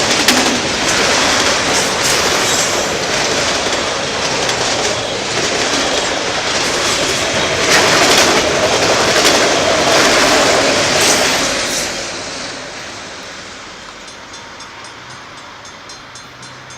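Norfolk Southern train rolling past, its wheels clacking over the rail joints, then fading away after about twelve seconds as the last cars pass.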